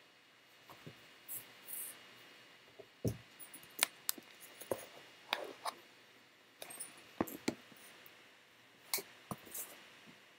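Irregular small clicks and taps, about fifteen at uneven spacing, with a duller knock about three seconds in and a few brief rustles.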